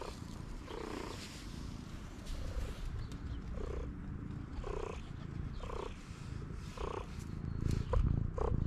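Hungry stray cat meowing in short calls about once a second, over a low steady rumble.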